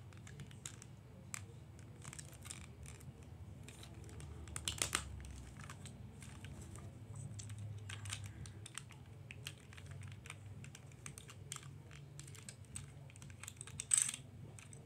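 Scattered faint clicks and taps of hard plastic parts being handled as a Fisher-Price Trackmaster Thomas toy engine is put back together, its body shell and screwed-on wheel section being refitted. A louder clatter comes about five seconds in and again near the end.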